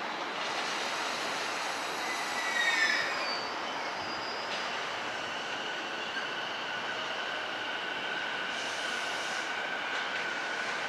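Train running on the tracks, its wheels squealing. A short, sharp squeal comes about two and a half seconds in, then a thin, steady high tone holds over the running noise.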